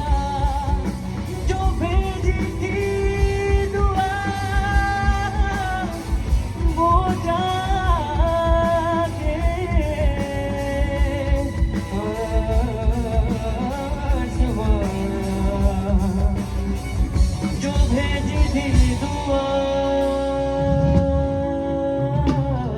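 Live band playing a Bollywood rock number: a gliding melodic lead over a steady drum beat, settling into one long held note near the end.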